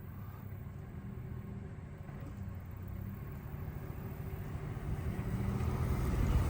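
A 2004 GMC Sierra 1500's 5.3-litre V8 engine running steadily, growing louder over the last two seconds.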